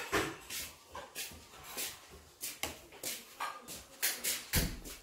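Eating sounds close to the microphone: a metal spoon scraping and clinking on a steel plate, and mouthfuls being chewed, heard as a run of short clicks about two a second, with a dull thump near the end.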